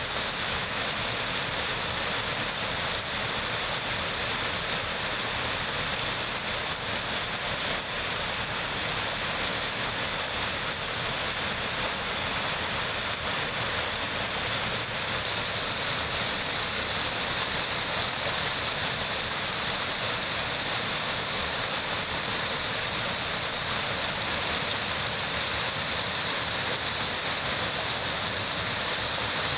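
Steady rush of river water flowing, an even hiss that never changes.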